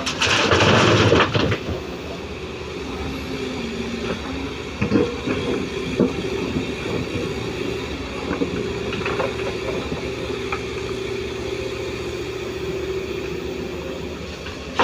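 Komatsu PC205 excavator's diesel engine and hydraulics running steadily with a held whine. In the first second or so there is a loud, rattling rush, typical of a bucket of murrum being tipped into a tipper's steel bed, and a couple of brief knocks come a few seconds later.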